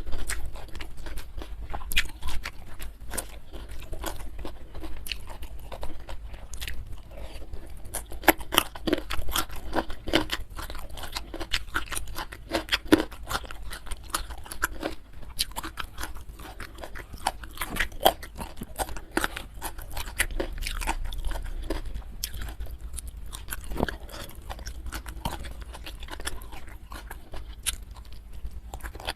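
Close-miked chewing with crisp, irregular crunches, several a second, of a person biting and chewing crunchy food.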